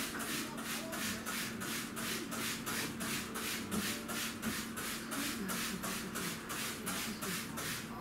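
Rhythmic scrubbing at a kitchen sink, a steady back-and-forth rasp of about four strokes a second.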